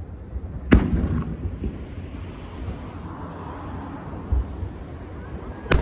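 Aerial firework shells bursting: a sharp boom about a second in and another near the end, each followed by a rolling rumble, with a softer thump in between.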